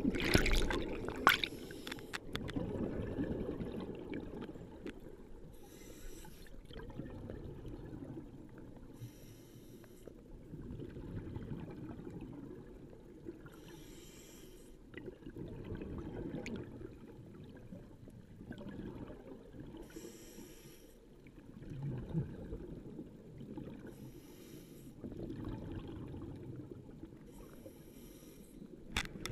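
Scuba diver breathing through a regulator underwater: a short hiss comes every three to five seconds, with low bubbling rumbles of exhaled air between. A few sharp clicks come in the first two seconds.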